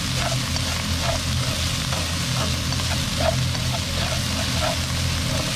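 Minced pork with mushrooms and onion sizzling in a nonstick wok, stirred and turned with a wooden spatula, with a steady low hum underneath.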